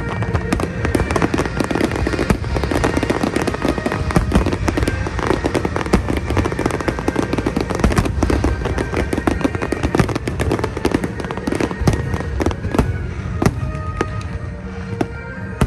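Fireworks going off in a rapid, dense barrage of bangs and crackles, with music playing underneath.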